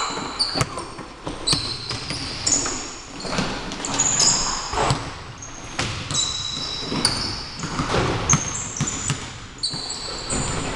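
Basketball game on a hardwood gym floor: sneakers squeal in many short high chirps as players cut and stop, with the ball bouncing in sharp knocks.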